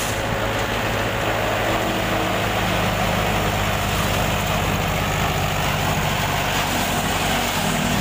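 Amar Toka chaff cutter running steadily as dry stalks are fed in by hand and chopped, over the steady hum of the tractor engine driving it; the engine note rises slightly near the end.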